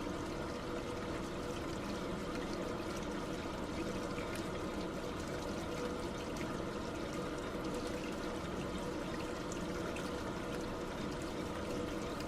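Water running and trickling steadily, with small splashes.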